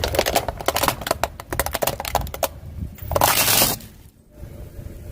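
Car tyre crushing brittle objects: a quick run of crackling and snapping, then a louder crunch lasting under a second about three seconds in, over a low rumble.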